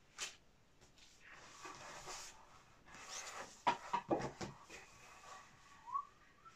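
Large sheets of heavy printmaking paper being lifted, turned and laid back on a stack: soft rustling with a cluster of sharp crackles and flaps about halfway through. Near the end, a brief soft rising whistle-like tone.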